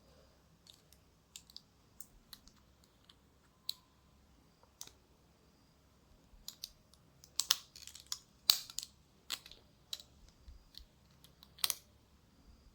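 Metal clicks and taps of a folding multitool being handled while a second tool is used to pry out its folded-in middle tools. The clicks come one at a time at first, then in a louder cluster in the second half.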